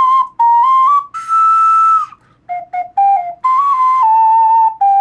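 3D-printed alto C ocarina playing a melody of short detached notes and longer held ones. The highest note, held for about a second just past the first second, comes with heavy breath noise; the player finds the very highest notes on this ocarina a little wonky and not quite in tune.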